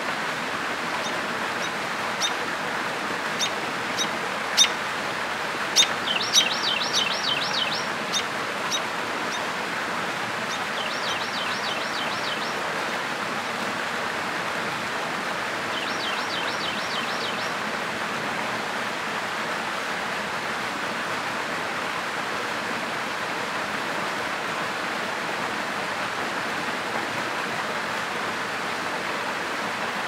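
A small waterfall splashes steadily into a pool. Over it, a bird gives sharp single chips through the first several seconds and three short, rapid trills in the first half.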